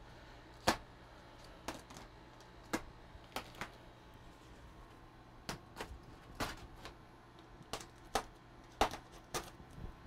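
Packing tape being cut and pulled off foam packing blocks: an irregular series of short, sharp crackles and clicks.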